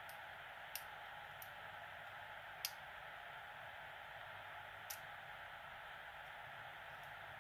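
Faint, irregular clicks of a hook pick working the spool pins of a pin-tumbler challenge lock: about six small clicks over several seconds, the loudest a little past the middle, over a steady hiss.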